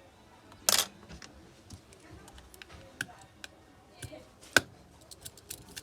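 Small hand tools clicking and tapping on the internals of an opened iPhone 6 Plus while its rear camera is being taken out: scattered light ticks, a brief rasp just under a second in and a sharp click past the middle.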